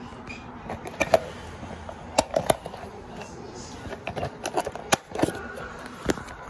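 Sharp plastic clicks and knocks, a handful at irregular intervals, from a toy remote-control Mario Kart car and its controller being handled to get at the battery compartment.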